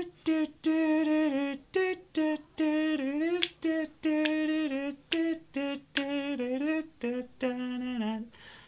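A man humming a bouncy wordless tune in many short separate notes, with a couple of sharp clicks among them.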